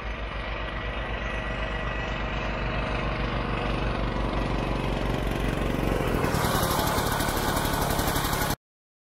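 Vintage Ski-Doo Olympique snowmobile's single-cylinder two-stroke engine running as the sled drives up and passes close by, growing steadily louder. The sound cuts off abruptly near the end.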